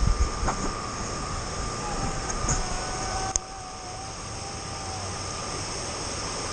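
River water rushing and splashing around a camera held at the water's surface, with a few low thumps of water against it near the start. A steady high insect buzz runs behind it.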